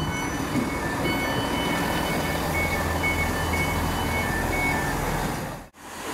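Trains standing at a station platform: a steady low rumble under short electronic beeps on two alternating high pitches, repeating for about four seconds like door warning tones. The sound drops out briefly near the end.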